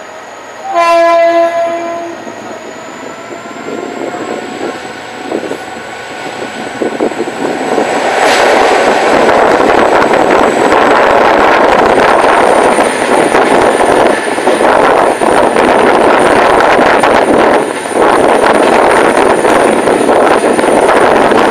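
A train horn sounds one short blast about a second in. About eight seconds in, loud rushing rail noise builds as a commuter train passes close by on the adjacent track, and it continues to the end with only a brief dip.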